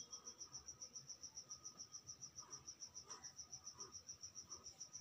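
Insect chirping in the background: a high, even trill of about seven pulses a second. Faint pencil strokes scratch on paper beneath it.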